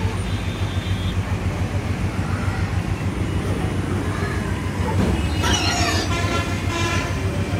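Steady low motor hum while diesel is pumped into a truck's fuel tank, with a brief higher-pitched sound with many overtones about five and a half seconds in.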